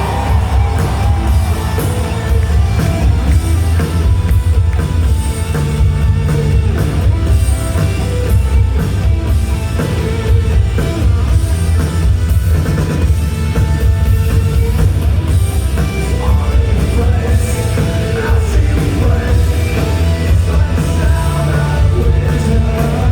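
Rock band playing live, a singer's voice over drums, bass and electric guitars.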